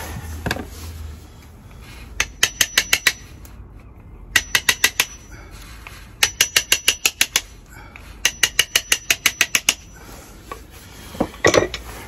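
A hammer rapidly striking a cold chisel, about eight blows a second in four short runs, each blow ringing. The chisel is chopping off plastic wall plugs that stick out of the drilled holes so the key safe will sit flat.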